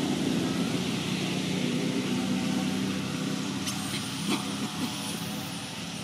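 A motor engine running steadily, slowly fading, with a few sharp clicks about four seconds in.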